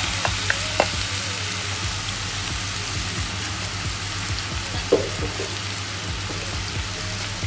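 Marinated mutton liver pieces sizzling in hot oil in a nonstick frying pan: a steady frying hiss with a few light pops in the first second and a sharper pop about five seconds in.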